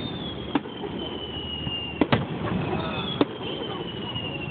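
Fireworks display: four sharp bangs of bursting shells, two of them close together about two seconds in. Two long high whistles fall slowly in pitch, the first starting at once and the second about three seconds in.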